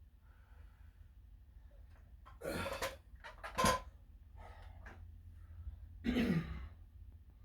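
A person breathing out hard and grunting with the strain of lifting weights. Three loud, short breaths come about two and a half, three and a half and six seconds in, with a fainter one between; the first and last are longer and partly voiced.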